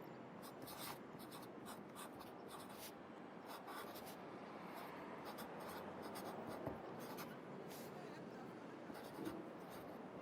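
Pencil writing on paper: quick, irregular scratching strokes over a steady background hum of city traffic.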